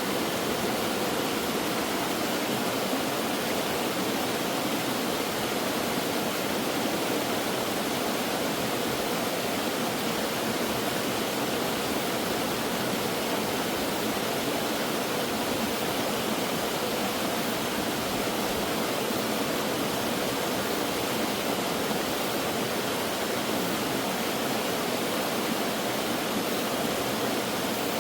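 Mountain valley stream rushing steadily over rocks, a constant even splashing.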